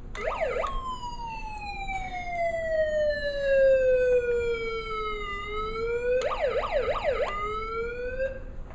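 Electronic siren sound from a Hess toy truck: quick rising-and-falling yelps at the start, then a slow wail falling in pitch for about five seconds and rising again, a second run of quick yelps about six seconds in, and a last rising sweep near the end.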